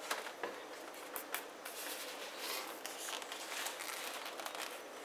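Light rustling and small scattered clicks of handling: a black electrical cable and the plastic-wrapped refrigerant line set being worked together by hand.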